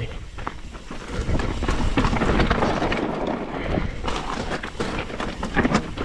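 Mountain bike riding down a rocky trail: tyres crunching over loose rock and gravel, with the bike rattling and knocking irregularly over a steady low rumble.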